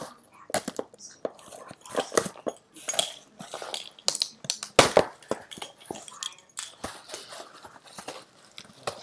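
A cardboard shipping box being opened and handled: irregular rustling, scraping and crinkling of cardboard and packing, with scattered knocks, the sharpest about five seconds in.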